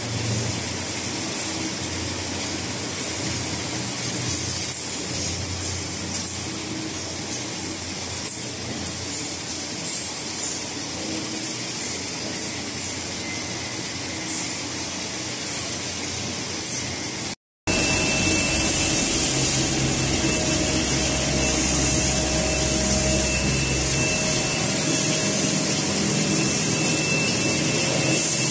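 Steady running noise of CNC longitudinal (Swiss-type) lathes on a machine-shop floor: a continuous mechanical hum and hiss. About seventeen seconds in it breaks off for a moment and comes back louder, with a steady high whine.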